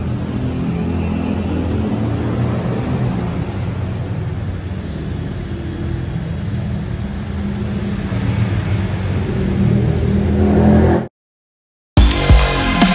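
Steady low mechanical drone of a running machine, growing slightly louder toward the end, then cut off abruptly. About a second later, electronic dance music with a heavy beat starts.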